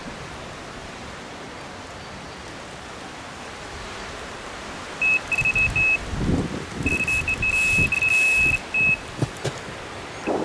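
Electronic fishing bite alarm sounding a single high-pitched beep, starting about halfway in as broken beeps and then running in rapid, almost continuous bursts for a couple of seconds: a fish has taken the bait and is pulling line (a run).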